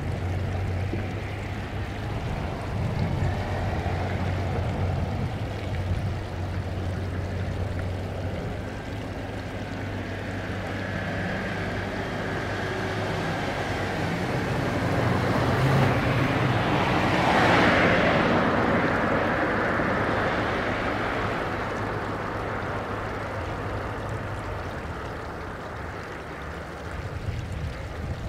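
Boeing 787 airliner's Rolls-Royce Trent 1000 jet engines at takeoff power, a steady rushing roar. It swells to its loudest a little past halfway as the jet lifts off and climbs toward the listener, then eases off.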